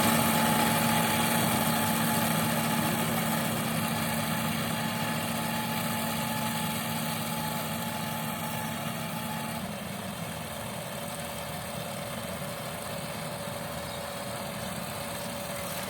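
Yanmar combine harvester's diesel engine running steadily, growing gradually fainter, with a shift in its tone about ten seconds in.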